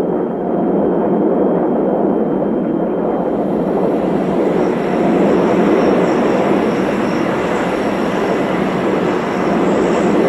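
Fairchild Republic A-10 Thunderbolt II's twin TF34 turbofan engines running as the jet flies toward the listener: a steady jet rush, with a high whine coming in about three to four seconds in as it draws nearer.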